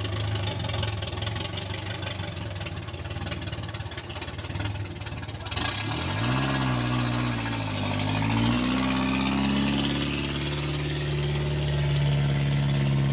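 Vehicle engines labouring under heavy load as a truck tows a loaded minivan up a steep broken step. About six seconds in, an engine revs up and is held at high revs, growing louder.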